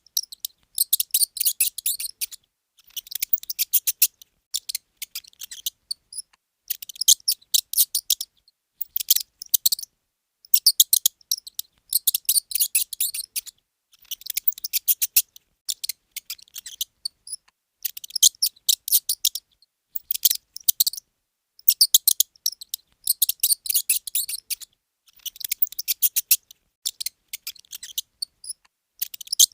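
Mouse squeaking: rapid high-pitched squeaks in bursts of a second or two, separated by short silences.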